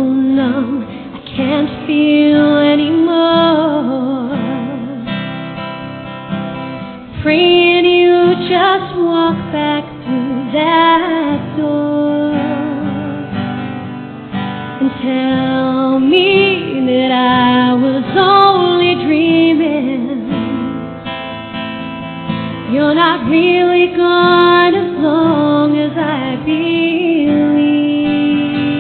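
Music: a woman singing over acoustic guitar.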